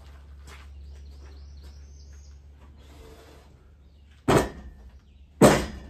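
Two loud knocks about a second apart as a freshly sawn timber is lifted and set back down against the sawmill's steel bed. A bird chirps faintly a couple of seconds before.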